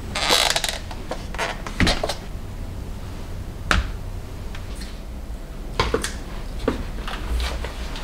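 Plastic food containers and jars being set down and shifted about in a clear plastic storage basket: a scrape near the start, then a handful of separate light knocks and clicks.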